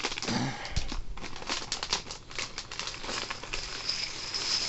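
Thin plastic Lego parts bag crinkling as it is torn and pulled open by hand, with the small plastic bricks inside clicking against each other in quick, irregular ticks.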